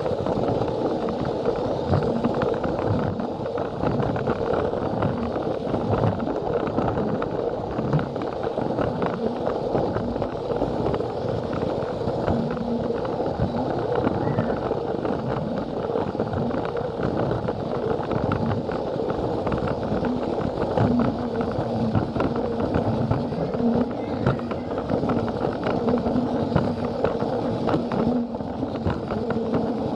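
A battery-powered Plarail toy train running steadily along plastic track: a constant motor hum with its wheels clicking over the track joints.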